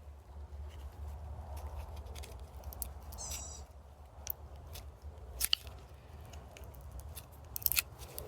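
Blade without teeth cutting through a capacitor's wound layers, with irregular small crunches and crackles and a short squeak about three seconds in. The layers melt together under the cut.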